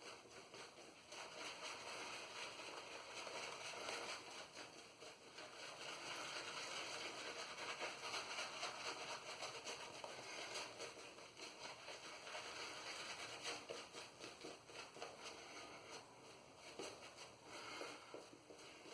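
Boar-bristle shaving brush swirling and working shave soap into lather, a steady soft crackling swish. The lather is on the dry side and needs more water.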